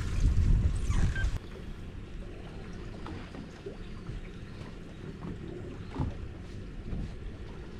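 Wind buffeting the microphone with a low rumble that cuts off abruptly about a second and a half in, leaving a steady low hiss of wind and sea around the drifting boat with a few faint ticks.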